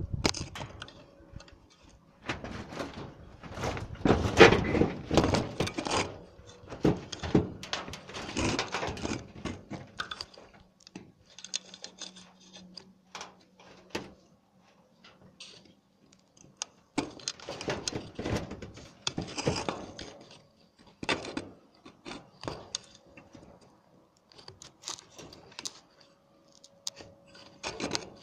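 Irregular knocks, clatters and scrapes of hands-on repair work on a canopy of plastic sheeting on a wooden frame, coming in busy clusters with short pauses between.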